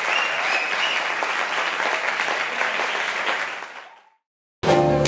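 Audience applauding, fading out about three and a half seconds in. After a brief silence, a jazz band starts playing abruptly near the end.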